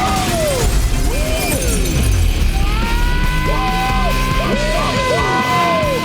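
Film soundtrack music with held high notes and swooping, sliding notes over a dense low bed.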